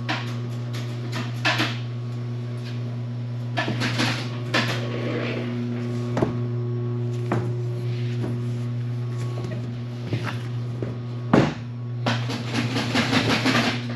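Steady machine hum with scattered knocks and clatter as a sewn lifting sling is handled. The sharpest knock comes about two-thirds of the way through, followed by a busier burst of clatter near the end.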